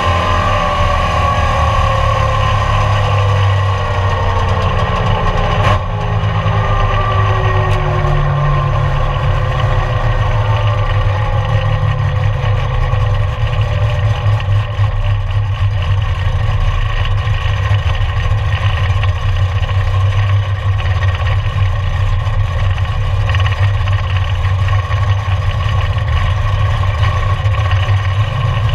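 Chevrolet Camaro's engine and drivetrain heard from inside the cabin, with whining tones falling in pitch over the first several seconds as the car slows down. It then settles into a steady, lumpy low rumble at low speed and idle. There is a single short knock about six seconds in.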